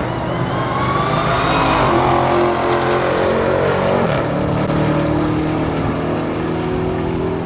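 Drag racing car accelerating hard down the strip, its engine note climbing in pitch and stepping at gear changes, loudest about two seconds in.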